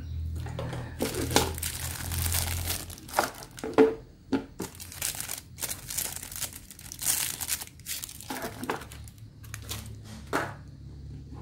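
Clear plastic packaging bag crinkling and rustling in irregular bursts as it is handled and a radio antenna is pulled out of it.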